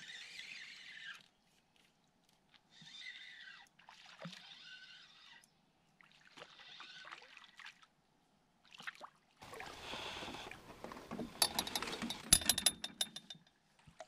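A small brook trout being reeled to the boat on a spinning reel: short bursts of reel winding, then the fish splashing at the surface about two-thirds of the way in. A quick run of clicks and knocks follows near the end.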